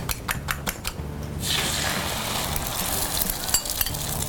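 Beaten egg poured into a hot oiled frying pan: a few sharp clicks of a utensil, then a sudden sizzle about a second and a half in that keeps going as the egg starts to fry.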